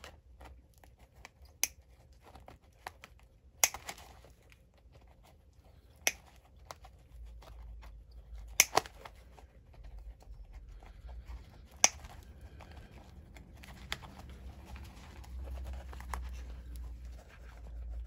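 Hand nippers prying and cutting along the rotted welt of an old leather boot: about seven sharp snaps a couple of seconds apart as the old welt stitching gives way, two in quick succession about halfway, with tearing and scraping of leather in between.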